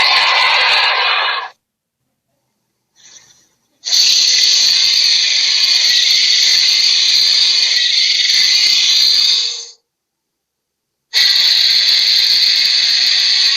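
Monster creature sound effects: harsh, hissing snarls, a short one at the start, then two long ones of about six seconds and over two seconds, each cut off into complete silence.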